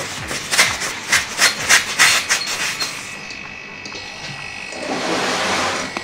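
Air hissing at a refrigerator compressor's copper line and hose coupling as the hose is switched from discharge to vacuum. A quick run of short spurts comes in the first couple of seconds, then a longer hiss near the end.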